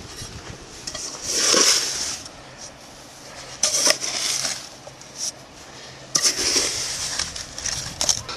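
A cooking pan used as a spade, scraping and scooping into beach sand. There are three strokes about two and a half seconds apart, with a shorter scrape near the end.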